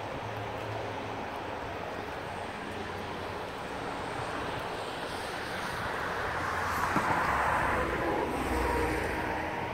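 Highway traffic: a steady rush of tyre and engine noise, with one vehicle passing louder about seven to nine seconds in.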